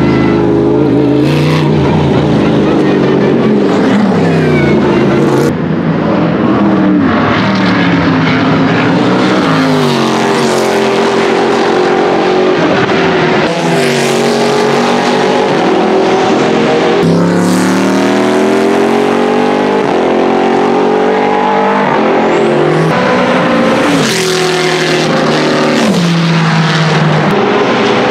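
Chevrolet LS3 6.2-litre V8 engines of Oreca FLM09 racing prototypes passing at speed over several fly-bys. The pitch climbs with each upshift and drops in steps on the downshifts, and a long rising sweep comes in the middle.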